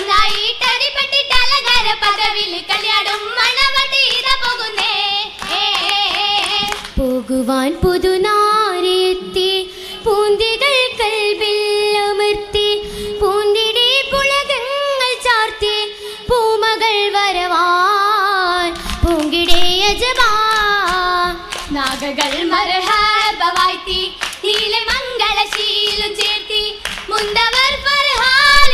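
Oppana: girls' voices singing a Mappila song in unison, with rhythmic hand-clapping from the dancers that grows denser near the end.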